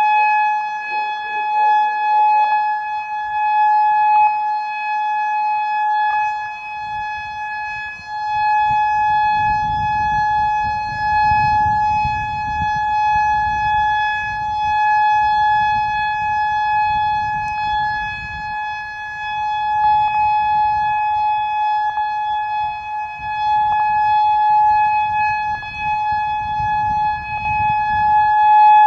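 Whelen 3016 electronic outdoor warning siren sounding a loud steady tone for a test, one unwavering pitch with overtones. A low, uneven rumble joins underneath from about six seconds in.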